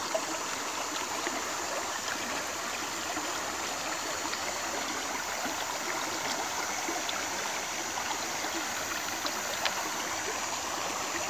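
Shallow rocky stream running steadily over stones, a continuous even rush of water.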